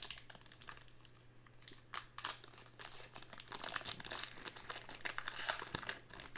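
A Topps Heritage baseball card pack's crinkly wrapper being crumpled and torn open at its crimped seam, a crackling that thickens through the second half.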